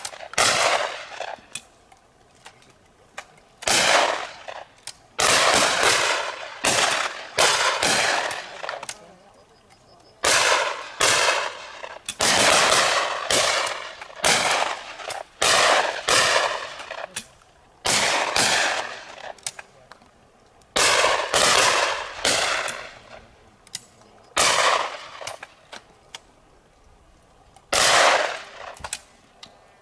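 Shotguns firing at clay pigeons from several pegs at once: dozens of sharp shots, often in quick doubles or clusters a second or two apart, each trailing off in a short echo.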